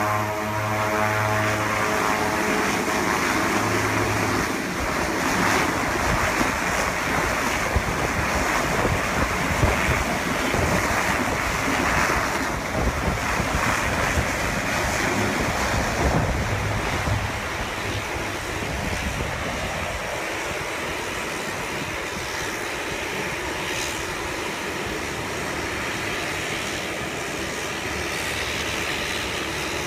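Twin Otter turboprop's engines and propellers running on the ground: a buzzing propeller tone at first, over a wide steady roar with wind noise, which becomes quieter a little over halfway through.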